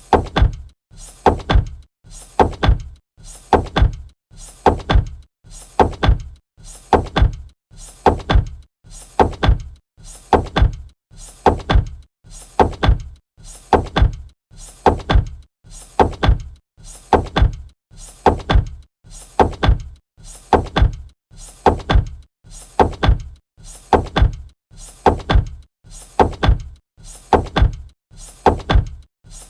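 Robot movement sound effect: a heavy mechanical cycle of a softer lead-in sound followed by loud thuds, repeating evenly about once a second like plodding steps.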